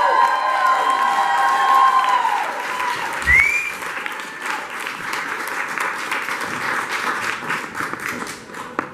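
Audience applauding and cheering. A long held cheer from one voice carries through the first two seconds, with a short rising whoop about three seconds in, and the clapping thins out toward the end.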